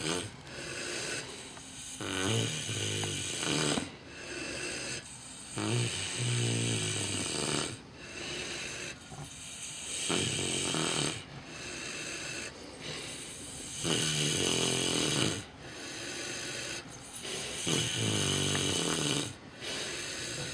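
Micro pig snoring loudly in its sleep: a rasping, pitched snore with each breath, repeating every two to four seconds.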